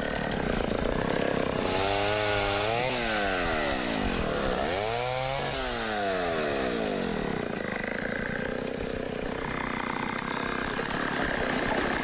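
Small chainsaw running and cutting a log, its engine revving up and down several times.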